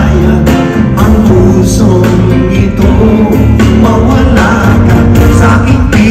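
Live band playing a song: a man singing into a microphone over drums and guitars.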